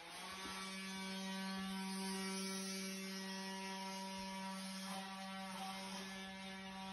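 Steady electrical hum at one low pitch with overtones, starting suddenly and holding level.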